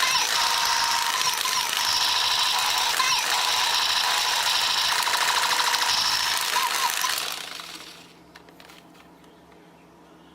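Battery-powered toy gun firing its rapid electronic rattle, with steady high beeping tones mixed in. It fades out about seven to eight seconds in, followed by a few faint clicks.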